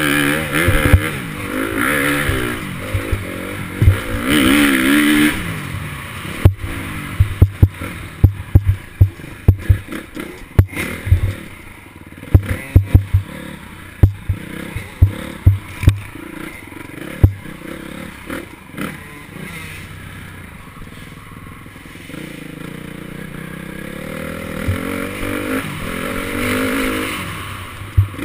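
Dirt bike engine revving up and down as it is ridden along a dirt trail. From about six seconds in, many sharp knocks and rattles take over while the engine sits lower, and the engine rises again near the end.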